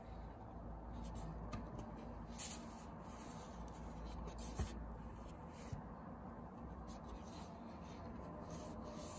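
Pages of a thick watercolor sketchbook being handled and turned: faint, brief paper rustles and rubs over a low room hum, with a small tap about halfway through.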